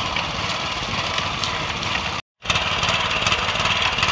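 Small engine of a walk-behind rice transplanter running steadily. It breaks off for a moment about halfway through, then carries on.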